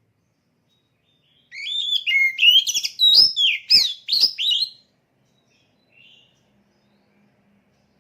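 Oriental magpie-robin (kacer) singing one rapid phrase of varied whistled and warbled notes, gliding up and down, starting about a second and a half in and lasting about three seconds, with a couple of sharp clicks in the middle.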